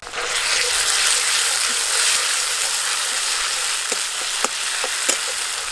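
Ground coriander, cumin and fennel paste sizzling in hot mustard oil with fried onions in a metal wok, stirred with a spatula. A few spatula knocks against the pan come about four to five seconds in.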